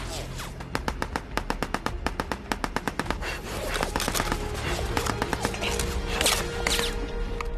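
Film battle soundtrack: rapid automatic gunfire, about eight shots a second, over a music score, giving way to a busier stretch of noise and music in the second half.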